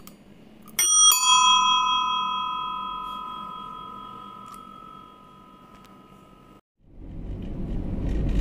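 A small bell struck twice in quick succession, its ringing tone slowly fading over several seconds before cutting off abruptly. Road noise from a moving vehicle rises near the end.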